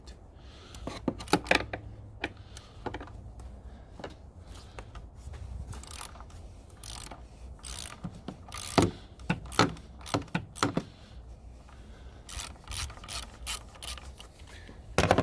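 Hand tool working on the Jeep's 3.6 Pentastar oil filter housing cap: irregular ratchet-like clicks and clinks in several clusters as the cap is worked loose.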